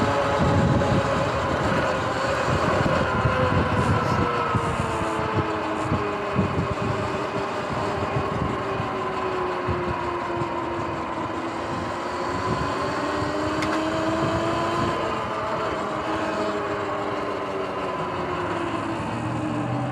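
Sur-Ron X electric dirt bike riding at speed: the whine of its electric motor and drivetrain, its pitch slowly falling and rising as the speed changes, over wind buffeting and road noise.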